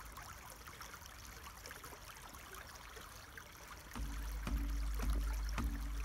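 Small brook trickling over stones and snow, a faint steady babble. About four seconds in, a louder low rumble joins it.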